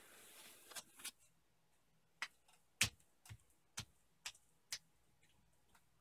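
Handling noise: a short soft hiss, then a run of about six sharp light clicks or taps roughly half a second apart.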